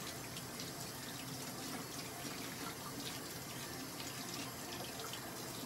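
Water running steadily from a tap into a sink.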